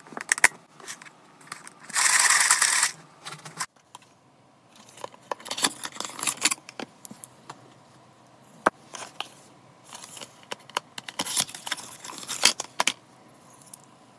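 Hands handling plastic packaging and containers: light clicks, taps and crinkles throughout, with a loud, brief rustle about two seconds in and busier bursts of crinkling and clicking around the middle and again near the end.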